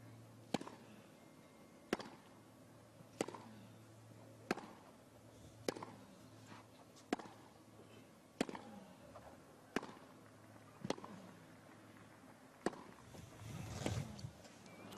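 A tennis rally: a ball struck by racket strings about ten times in turn, a sharp pop roughly every second and a quarter. A crowd noise swells near the end as the point finishes.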